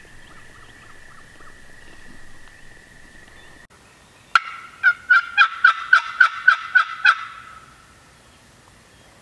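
Hand-held turkey call run in a loud series of about ten evenly spaced hen yelps, roughly four a second, starting about four and a half seconds in: calling into the timber to draw a gobble. Before it, a faint steady high tone and a few faint soft notes.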